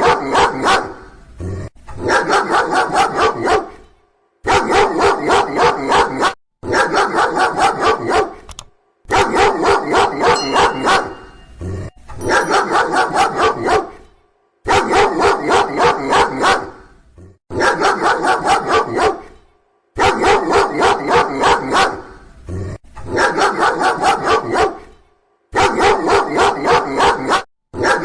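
A dog barking loudly and rapidly in runs of quick barks, each run a couple of seconds long, broken by short silent gaps.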